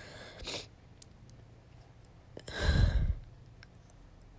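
A crying girl's breathing between words: a short breath about half a second in, then a heavy sigh about three seconds in, the loudest sound.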